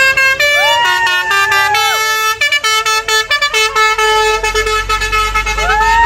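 Basuri multi-tone 'telolet' horn on a Hino dump truck playing a melody: a few quick short notes, then long held notes that slide up as they begin and droop as they end. The truck's engine rumble swells from about four seconds in.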